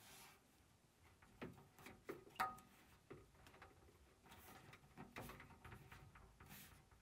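Near silence with a few faint, short clicks and taps as a plastic magnetic seal strip is pressed onto the edge of a glass shower door.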